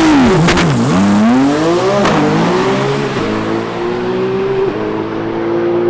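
Twin-turbo Nissan GT-R drag car engine revving hard. The pitch swoops up and down twice, then climbs steadily under acceleration, with brief dips at gear changes about three and about five seconds in.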